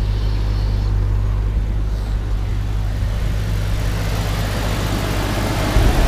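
1996 Jeep Cherokee XJ's 4.0-litre straight-six idling steadily just after a cold start, heard from the cab and then more clearly from the open engine bay in the second half. It runs cleanly, with no unusual engine noises.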